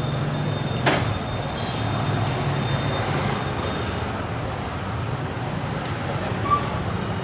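Steady low hum of an engine and street traffic, with the soft scrape of dosa batter being spread in circles on an iron griddle with a steel bowl. A sharp click comes about a second in.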